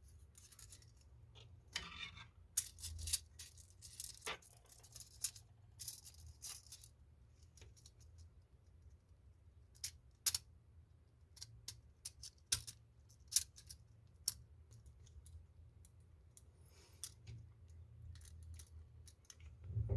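Faint, scattered clicks, taps and small scrapes of metal tools and small parts being handled while a mechanical alarm-clock movement is put together, with short quiet gaps between.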